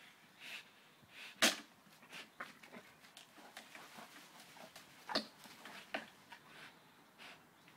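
A Belgian Malinois hanging by its jaws from a rope tied to a tree and tugging on it. Its own dog noises mix with scattered sharp knocks and scuffs, the loudest about a second and a half in and two more near the end.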